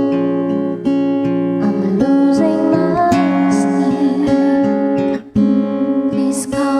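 Acoustic guitar plucked and strummed, with a woman singing over it; the music breaks off briefly about five seconds in.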